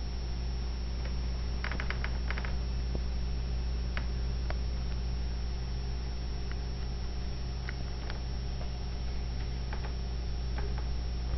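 A cat licking another cat's fur: soft clicks of the tongue, a quick run of them about two seconds in and scattered single ones after, over a steady low hum.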